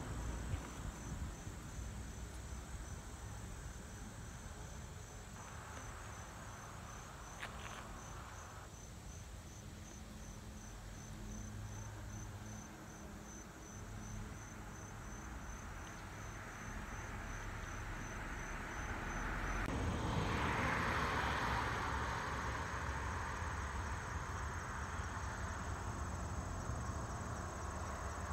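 Insects chirping, crickets by their sound: an even run of high chirps about two a second over a steady high trill, with a low rumble underneath. About twenty seconds in, the chirping stops and a rushing noise swells up, then eases off.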